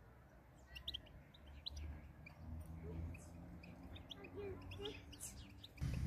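Goldfinches chirping and twittering in short, scattered high calls, beginning about a second in.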